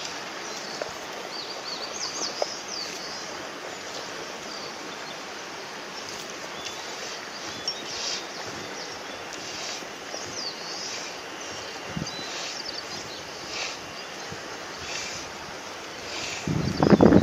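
Birds chirping faintly over a steady outdoor hiss. About a second before the end, wind starts buffeting the microphone with a loud, rough rumble.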